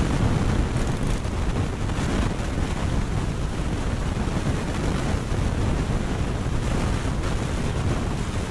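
Wind buffeting the microphone: a steady, dense rushing noise, heaviest in the low end.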